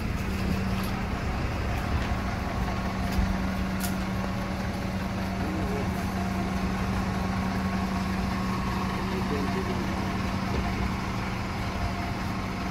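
Iveco Crossway LE city bus idling at a stop, its engine giving a steady, unchanging drone.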